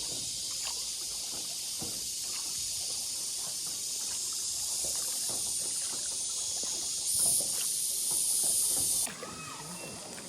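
A steady high-pitched hiss, louder for a moment about seven seconds in, that cuts off suddenly about nine seconds in, with faint clicks underneath.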